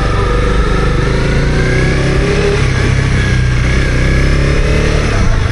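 Honda CB250R motorcycle's single-cylinder engine pulling under acceleration while riding: the engine note rises over the first two seconds or so, holds steady, then drops away near the end as the throttle eases.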